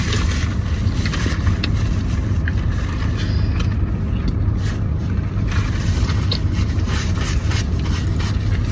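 Steady low rumble of a car heard from inside the cabin, with scattered small rustles and clicks over it.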